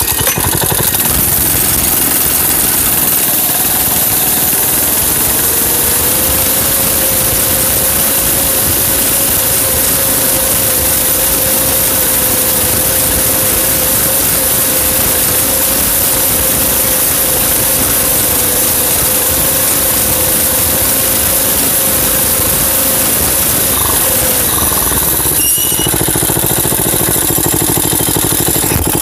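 Mini bike engine running while being ridden, its pitch climbing about six seconds in, holding steady for a long stretch, then falling away near the end as it slows. Wind and rough-trail noise on the handlebar-mounted microphone.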